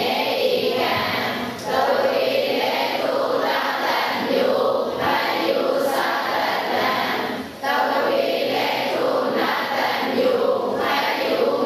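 Many voices chanting a Pali text together in unison, as a class recites. Two short breaks between phrases come at about one and a half seconds and seven and a half seconds in.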